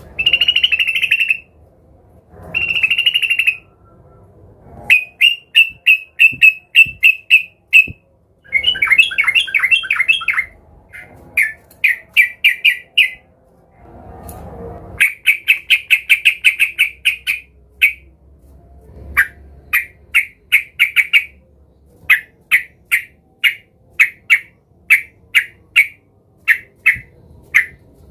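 Yellow-vented bulbul (trucukan) chattering loudly in harsh, sharp notes. Short rattling bursts give way to fast strings of repeated notes, and near the end to single notes about two a second. This is the agitated 'gacor' calling of a bird seeking a rival.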